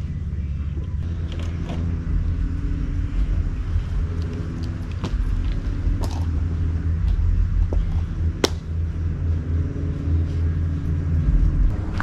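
Inside a van while it drives: steady low road and engine rumble, with a few sharp clicks or rattles, the strongest about eight and a half seconds in.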